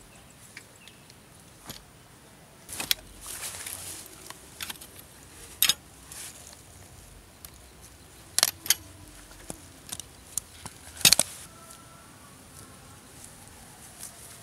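Metal tent poles clinking and rattling as they are handled on a backpack: several sharp metallic clicks, with rustling of the pack and grass between them.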